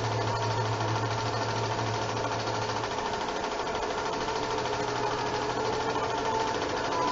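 8mm film projector running, its shutter and film-pull mechanism clattering in a fast, steady rattle, with a low hum that weakens about three seconds in.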